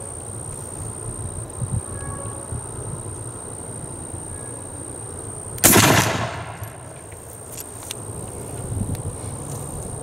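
A single shot from an M1842 .69 calibre percussion rifle musket loaded with a round-ball cartridge, a little past halfway through: one sharp report with a short echo trailing off.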